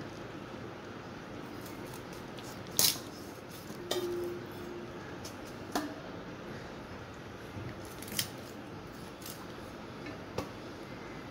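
Raw chicken being cut on a boti, a curved blade fixed upright on a base, heard as a handful of sharp clicks and knocks over a steady faint hiss. The loudest knock comes about three seconds in. Two of the knocks are followed by a short ringing tone.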